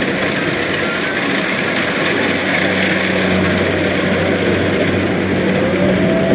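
Kubota DC-70 Plus rice combine harvester running steadily, its diesel engine and harvesting machinery giving a dense, even mechanical noise with a low hum that grows clearer about halfway through.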